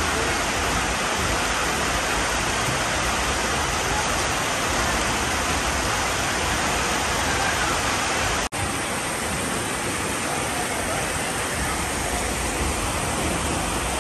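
Steady, even rushing noise, broken by a brief dropout about eight and a half seconds in.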